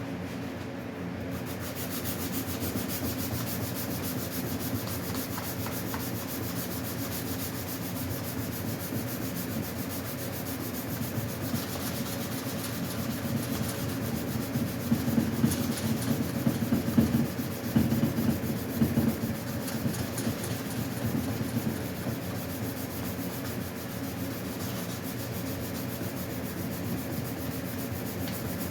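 Hand sanding of Bondo body filler on a bicycle frame, using sandpaper wrapped around a sponge: a continuous back-and-forth rubbing, louder for a few seconds in the middle.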